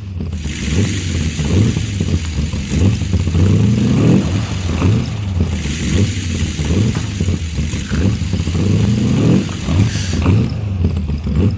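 Car engine running steadily, its pitch rising and falling now and then.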